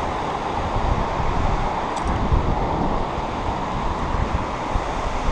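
Steady rushing of whitewater river rapids, with uneven wind buffeting on the microphone underneath. A light click about two seconds in.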